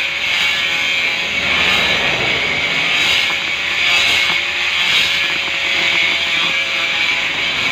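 Power tool grinding granite: a steady whine over a gritty hiss that runs without a break.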